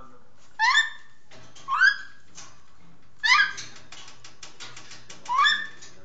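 Young African grey parrot giving four short, rising squawks about one to two seconds apart, the begging calls of a hand-fed chick at feeding time. Faint clicking runs between the third and fourth calls.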